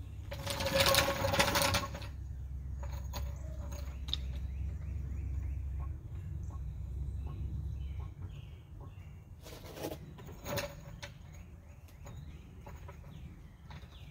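Daytona floor jack being wheeled across concrete and set under the car: a loud metal rattle from about half a second in, a low rolling rumble until about eight seconds, then a couple of sharp clanks around ten seconds.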